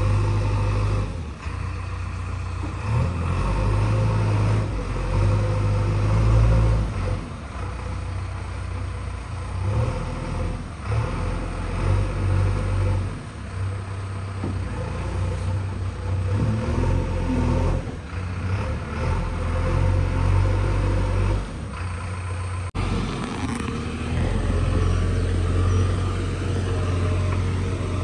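JCB 3DX backhoe loader's diesel engine running as the machine drives over dirt, its level rising and falling with the throttle, with an abrupt break about three-quarters of the way through.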